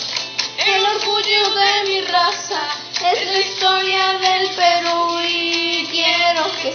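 A child singing a song over musical accompaniment, holding several long notes.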